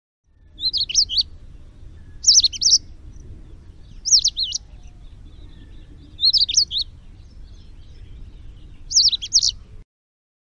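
A small bird singing five short phrases of quick, high, swooping whistled notes, about two seconds apart, over a faint low background rumble.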